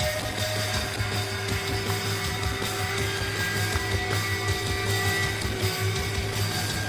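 Live rock band playing, heard from within the crowd: held sustained notes over a steady, heavy low bass.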